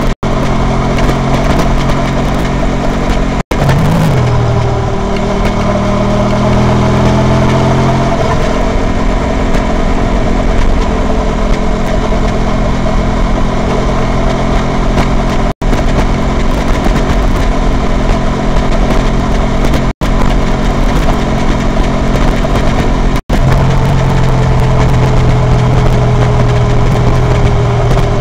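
Honda VT250F's V-twin engine running as the motorcycle is ridden, heard from on the bike. The engine note dips and climbs again about four seconds in, then holds steady. The sound cuts out for an instant a few times.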